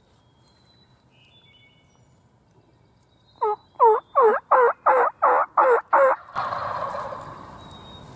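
A turkey call running a sequence of about eight hen yelps, each note dropping in pitch, answered right after by wild turkey gobblers gobbling together, fading out over a second or two. The gobblers are answering the call from their roost.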